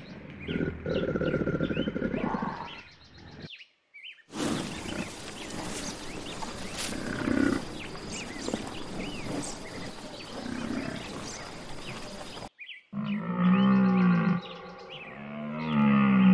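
Three animal sounds in turn, with birds chirping behind them. First a crocodile's low rumbling growl, which stops about three and a half seconds in. After a short gap comes outdoor sound from grazing water buffalo with two low grunts, then near the end two long bellows from a deer stag that rise and fall in pitch.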